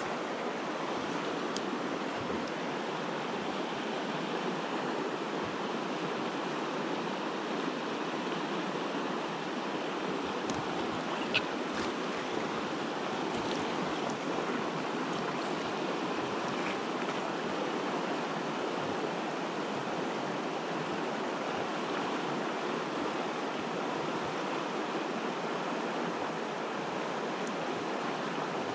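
Steady rush of a shallow mountain river flowing over rocky riffles, with one sharp click about eleven seconds in.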